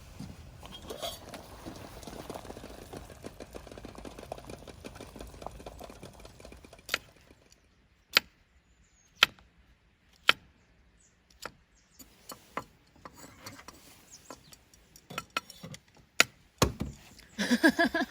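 Cooking utensils and dishes being handled. A few seconds of dense scraping and rustling give way to sharp single clinks and taps, about one a second at first, then more irregular.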